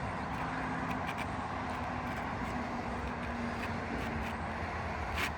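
Steady outdoor background noise with a faint low hum, like distant traffic, and a few faint clicks.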